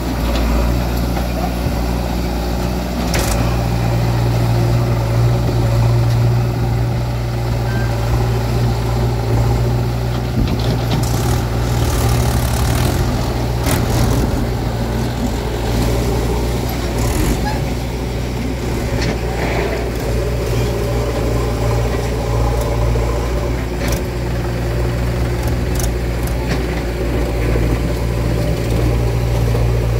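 Heavy diesel machinery engine running steadily at a constant speed, with a few brief knocks and clanks over it as a backhoe loader loads mud into a tractor trailer.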